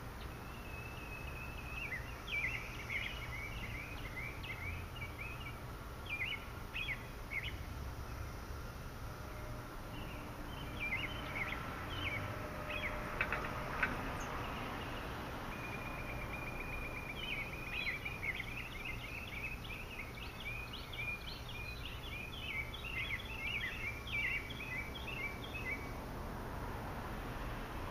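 A songbird singing in bouts of quick chirping notes, the longest run about halfway through, over a steady low background rumble.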